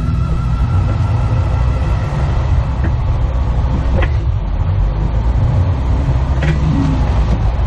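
Jeep Wrangler JK engine pulling slowly up a steep rocky trail, a steady low rumble, with three short sharp knocks about three, four and six and a half seconds in.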